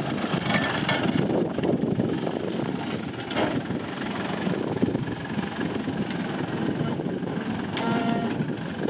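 Off-road prototype 4x4's engine running, its level rising and falling a little.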